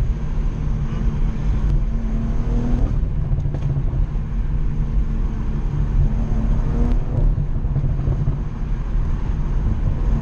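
BMW M340i's 3.0-litre turbocharged inline-six and its road noise while driving, a steady low rumble. The engine note holds steady for a few seconds at a time, drops away about three seconds in, and returns in the middle stretch.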